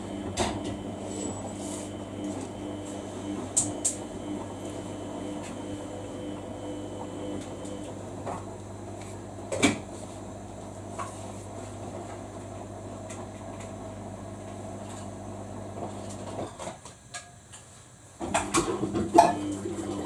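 Samsung washing machine's drum motor humming steadily as the drum turns during a quick wash cycle, with clicks and knocks of the load tumbling. About 17 s in the motor stops briefly, then starts again with a clatter as the drum reverses direction.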